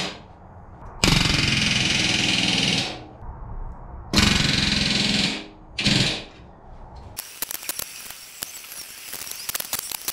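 Pneumatic rivet gun hammering solid aluminium rivets into an aircraft wing rib, setting the stiffeners. It goes in three bursts of rapid blows: about two seconds, one and a half seconds, then a short one. Light scattered clicks follow.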